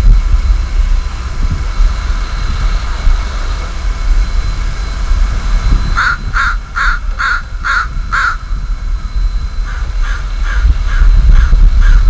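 A crow cawing six times in quick succession about halfway through, then a fainter run of caws near the end, over a steady low rumble.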